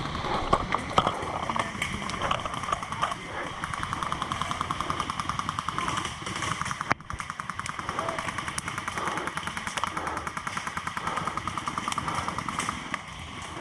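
Airsoft guns firing on full auto: long bursts of fast, even clacking shots.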